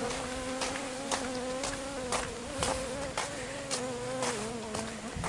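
Swarm of fusco stingless bees (Tetragonula fuscobalteata) buzzing in a steady drone close around the head, the angry colony still attacking and chasing after its hive was opened. Footsteps sound about twice a second.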